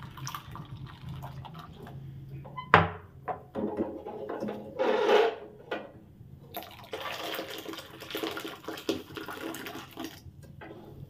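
Thick hot pandan-coconut agar-agar mixture pouring from an aluminium wok into a glass dish, with pan noises and one sharp knock about three seconds in.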